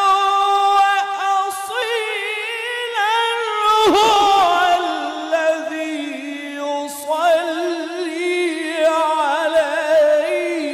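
A male qari reciting the Quran in long, ornamented melodic phrases, holding and bending high notes with a wavering pitch. A brief noisy burst cuts in about four seconds in.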